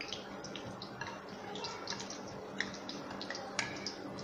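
Chilli pakoras deep-frying in oil: a faint, steady sizzle scattered with small pops and crackles.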